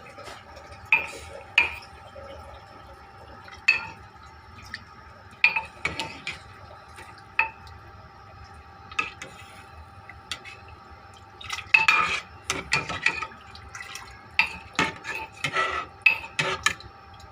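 Metal utensil clinking and knocking against a cooking pot in irregular taps, busier about twelve seconds in and again near the end.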